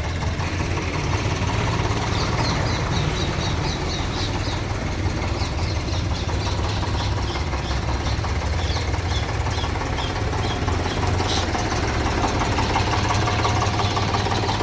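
Diesel engine of a JCB digger running steadily while it works loading a tipper truck. A steadier higher tone joins the engine near the end.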